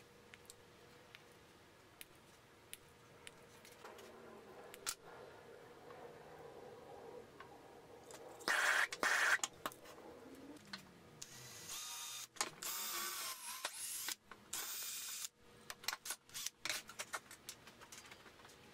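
Small electric motor on a wooden block, run in short spurts: a brief whirr about nine seconds in, then a longer run from about eleven to fifteen seconds with a wavering pitch and two short stops. Scattered clicks and taps from handling follow.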